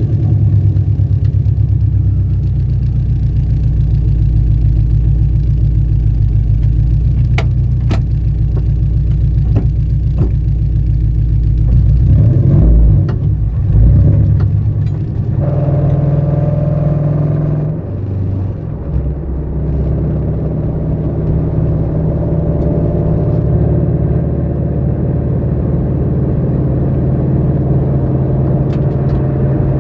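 Toyota GR86's 2.4-litre flat-four, breathing through an unequal-length header, a catless 3-inch front pipe with no resonator and an HKS single exhaust, running steadily with a low rumble. About twelve seconds in it grows louder and uneven for a few seconds, the note changes, and then it settles back into a steady run.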